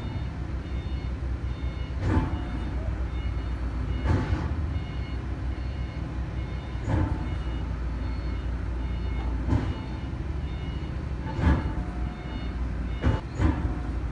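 Engine of a Sumitomo ST500M lattice-boom mechanical truck crane running steadily while it holds a suspended load on the hook, with a high warning beeper sounding in short repeated beeps. Sharp clunks come every two or three seconds, two close together near the end.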